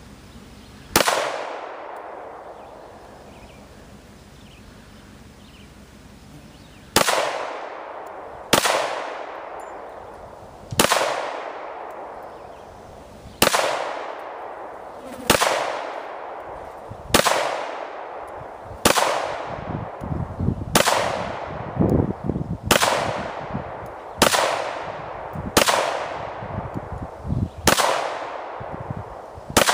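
Glock 19 9mm pistol firing single shots at a target: one shot about a second in, then after a pause a steady series of about a dozen more, roughly two seconds apart, each with a short echoing tail.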